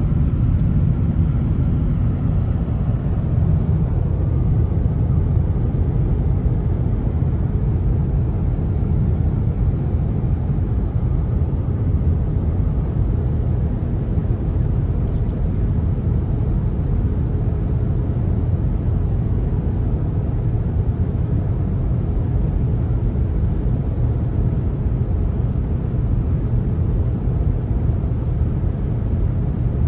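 Steady road and tyre rumble with engine noise inside a car's cabin while driving at highway speed.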